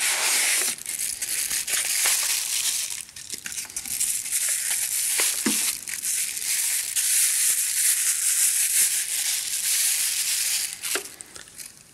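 Packaging handled by hand: foam packing inserts rubbing against a cardboard box, then a clear plastic bag crinkling and rustling continuously as an LED light bar is pulled out of it.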